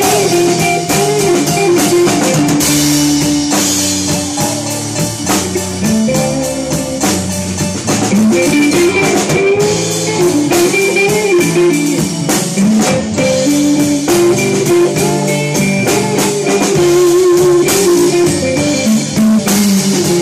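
Live rock band playing: guitar with bending, wavering notes over a steady drum-kit beat.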